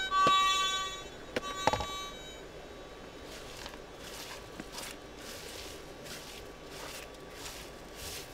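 Metal detector's target tone sounding in short on-off beeps as the coil passes over a signal, then a thump, then repeated scraping and scratching of hands and a pick digging into gravelly soil on bedrock, about one stroke every half second to second.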